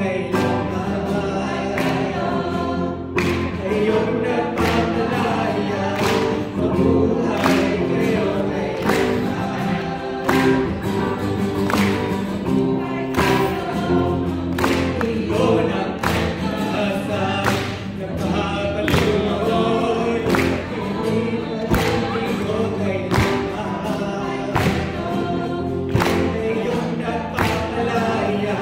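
A group of voices singing a song together to a steady beat.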